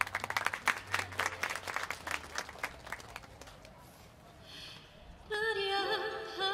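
Small crowd applauding, the clapping thinning out over about three seconds. About five seconds in, a song's music starts with held, wavering notes.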